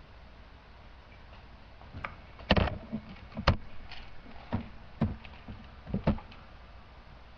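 A run of about eight sharp clicks and knocks of small objects being handled close to the microphone, starting about two seconds in, with the loudest two knocks near the start of the run. These are makeup items being picked up and set down.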